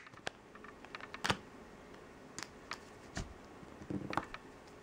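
A handful of light, irregular clicks and taps as a scraper card and a silicone stamper work against a metal nail-stamping plate.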